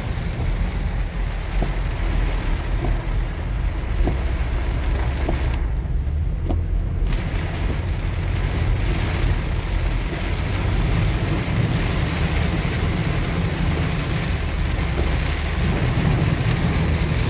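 Heavy rain drumming on a moving minivan's windshield and body, heard from inside the cabin, over a steady low rumble of the van on the wet road. The sound turns briefly muffled about six seconds in.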